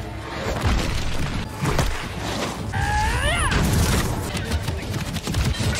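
Battle sound effects from an animated fight: a dense run of crashes and impacts over music, with a short pitched sound rising and falling about halfway through.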